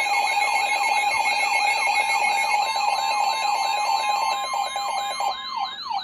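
Weather alert radios sounding their alarms at once: a siren-style tone wails up and down about three times a second over steady alert tones. The steady tones cut off near the end while the wailing goes on.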